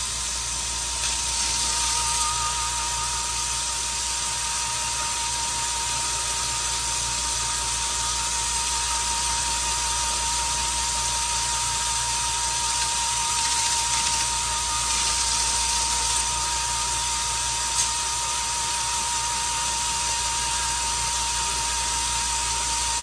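An electric grinder runs steadily with a constant whine while the steel rails of a chainsaw bar are held against it and ground flat, giving a continuous grinding hiss. This is rail dressing: taking off burrs so the chain rides level on the bar.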